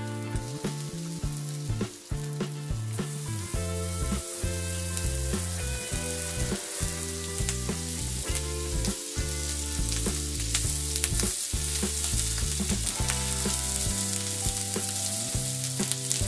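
Compound butter melting and sizzling on the hot side of an oiled steel plancha, with sea bass fillets frying beside it: a steady frying hiss that grows stronger a few seconds in.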